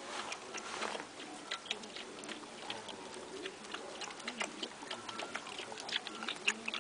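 Two dogs moving about on gritty ground, making light, irregular clicks and ticks that come thickest near the end.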